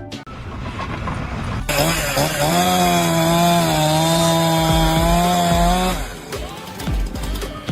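A power saw cutting: a loud, steady pitched whine over a rasping noise that starts suddenly about two seconds in, dips briefly in pitch as it bites, and stops after about four seconds.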